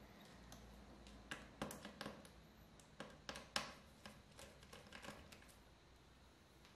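Faint, scattered small clicks and ticks of a precision screwdriver and tiny screws as the screws holding a laptop's LCD screen panel are taken out.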